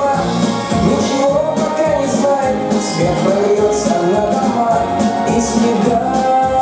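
Recorded upbeat pop song in an instrumental stretch: a melody over a steady dance beat with bright cymbal or shaker strokes.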